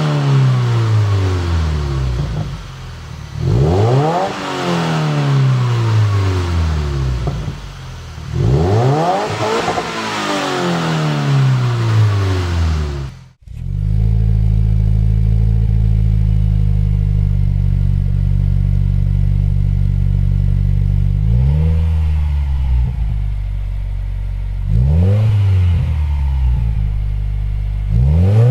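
Subaru WRX turbocharged 2.0-litre flat-four through an aftermarket exhaust, revved in three free-revving blips that rise sharply in pitch and fall slowly back to idle. After a sudden cut about halfway through, a WRX idles steadily through another exhaust, with short quick blips near the end.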